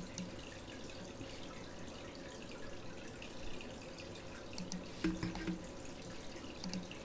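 Low steady room noise with a few faint clicks, the sharpest about five seconds in.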